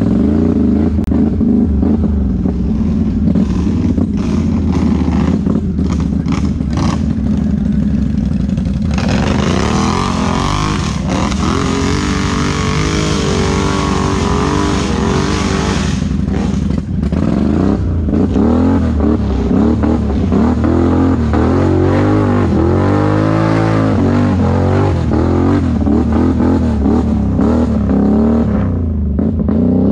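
Can-Am ATV engine running under the rider, rising and falling in revs as it works along a rough dirt trail. A loud rushing hiss rides over it for several seconds starting about nine seconds in, and the revs swing up and down again past twenty seconds in.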